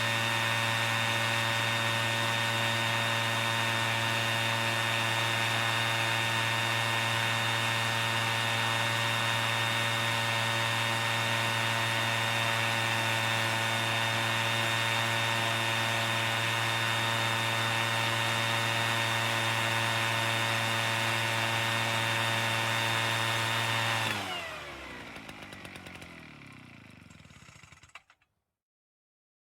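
A machine motor running at a steady pitch, then shutting off about 24 seconds in and winding down, its pitch falling for a few seconds before it stops.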